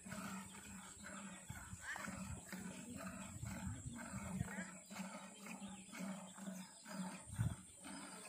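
Hand-milking of a cow: jets of milk squirting into a plastic milk can in a steady rhythm, about two squirts a second.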